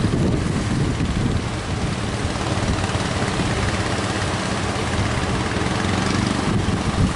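Boat engine running steadily under a haze of wind and surf.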